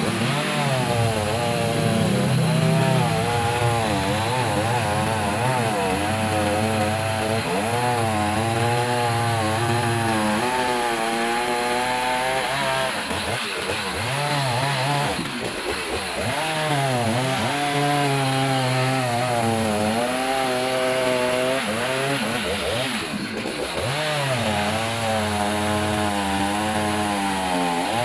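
Stihl MS 180 two-stroke chainsaw cutting through a fallen tree trunk. The engine pitch keeps rising and sagging as the chain bites into the wood, and it drops off briefly about halfway through and again later before revving back up.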